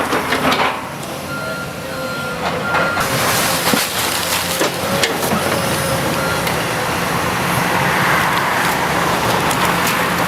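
Demolition machine's diesel engine running under load while wood and debris crack and crash as a building is torn down. A reversing alarm beeps several times about a second in.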